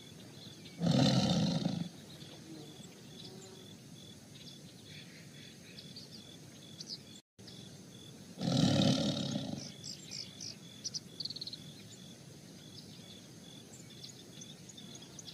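Tigers roaring as they fight: two loud roars about a second long each, one about a second in and one just past the middle, over faint bird chirps.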